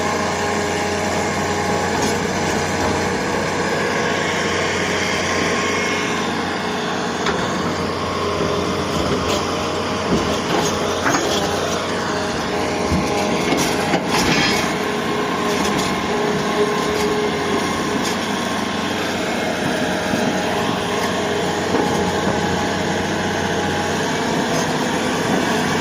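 Excavator engine running steadily under load, with a few sharp knocks about halfway through.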